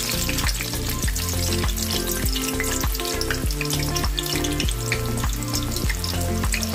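Onion slices sizzling and crackling steadily in hot oil in a stainless steel pan. Background music with a steady beat plays underneath.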